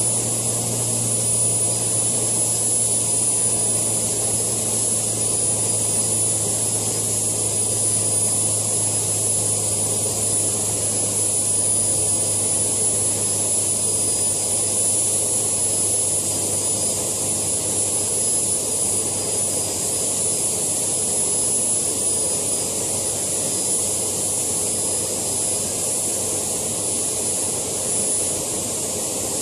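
JetCat PHT2 model-helicopter turbine running at a steady speed on the ground: a high, steady whine over steady rushing noise, with a low hum underneath.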